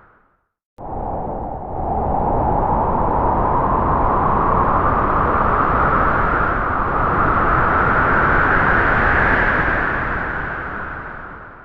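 Spooky Halloween sound effect: a long, loud rushing howl. It starts abruptly after a short silence, its pitch slowly rises, then sinks a little as it fades away near the end.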